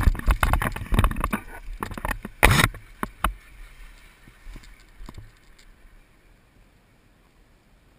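Wind buffeting a GoPro microphone with a rapid, irregular run of knocks and rustles as a paramotor wing comes down onto the sand. The sounds die down to quiet about six seconds in, with no engine tone heard.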